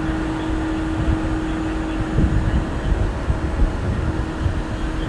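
Steady city street background noise: a low traffic rumble with a constant droning hum and a few faint knocks.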